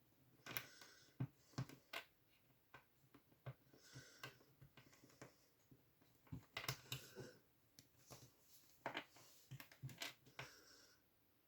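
Small plastic Plus-Plus building pieces clicking and tapping irregularly as they are handled and pressed together, with brief bits of rustling.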